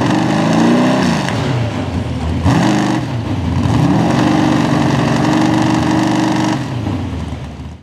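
Mini rod pulling tractor's V8 engine revved twice, its pitch rising and falling each time, then held at a steady higher speed, and cut off near the end.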